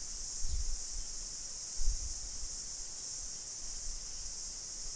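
Steady high-pitched hiss of recording noise from a computer microphone, with two faint low thumps about half a second and two seconds in.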